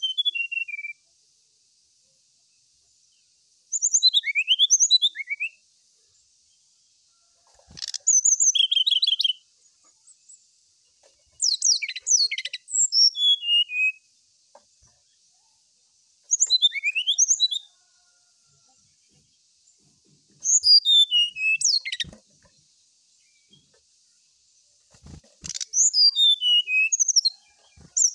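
Brown-chested jungle flycatcher singing: short phrases of clear whistled notes sliding down in pitch, ending in quick trills, repeated about every four seconds. A few soft knocks come between phrases.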